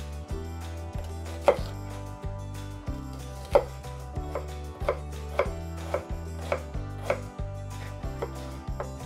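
Kitchen knife mincing an onion on a wooden cutting board: separate sharp knocks of the blade on the board. Two louder cuts come in the first four seconds, then a steadier run of cuts about two a second.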